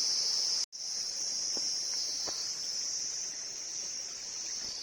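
Steady high-pitched drone of an insect chorus, cut off for an instant less than a second in, with a couple of faint ticks.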